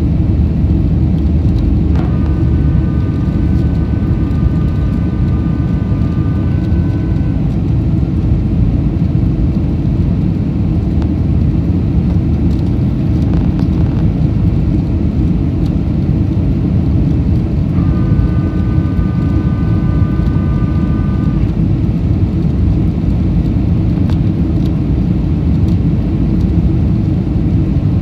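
Steady low roar inside the cabin of a Boeing 747-400 with four Pratt & Whitney PW4056 engines, from engine and airflow noise. A cabin chime rings out twice over it, about sixteen seconds apart, each time fading over a few seconds.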